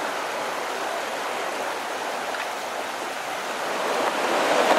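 Steady rush of flowing river water, growing louder near the end.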